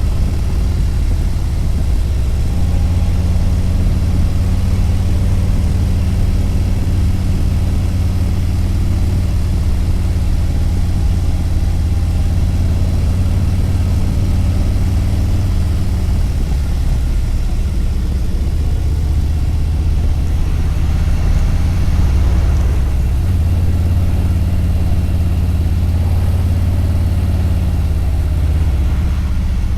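Harley-Davidson V-twin motorcycle engine running steadily while riding, its note shifting a few times as the throttle changes.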